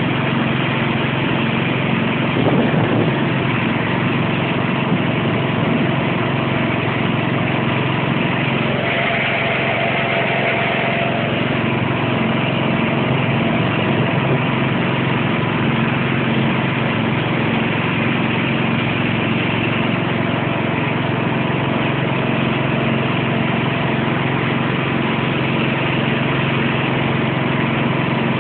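Small garden tractor engine running steadily, with a brief louder moment about two and a half seconds in.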